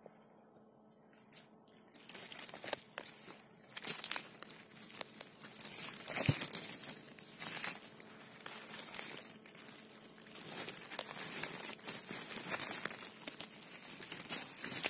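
A hand scraping aside dry conifer needles, twigs and dead leaves on a forest floor: dense, irregular crackling and rustling that starts about two seconds in.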